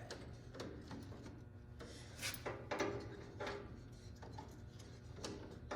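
Intermittent rubbing, scraping and small clicks as a garden tractor's light switch is worked back into its mounting by hand, a fiddly fit.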